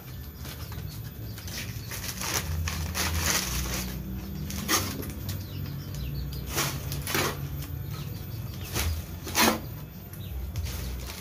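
Planting mix of manure and rice-husk charcoal being scooped and worked: about eight irregular rustling scrapes, each brief. Faint bird chirps sound behind them.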